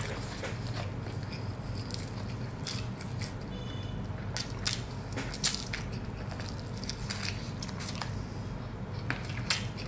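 Crispy fried chicken being pulled apart by hand and bitten into, giving scattered short sharp crackles. A low steady hum runs underneath.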